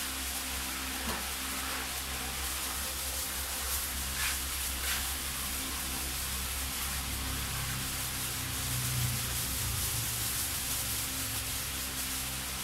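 Steady hiss with a low electrical hum, with a few faint ticks and some handling and rubbing sounds as protective rubber gloves are pulled on.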